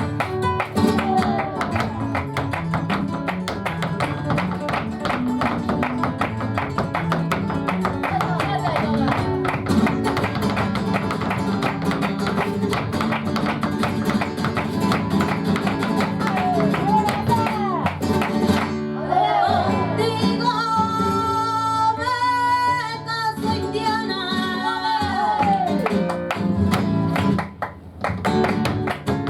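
Flamenco guajira played live: a flamenco guitar strumming and picking with dense, fast strokes, joined by a flamenco singer's voice, clearest in the second half.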